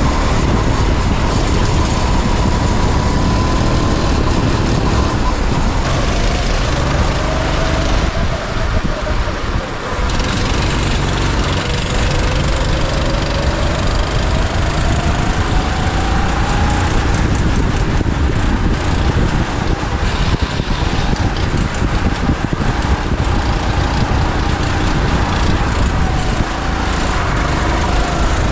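Go-kart engine heard from an onboard camera, its pitch falling and rising as the kart slows for corners and accelerates out of them, over heavy wind buffeting on the microphone.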